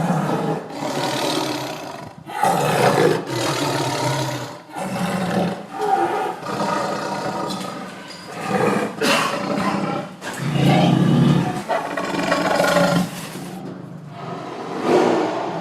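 Tiger roaring: a string of loud roars, each a second or two long, with short gaps between them.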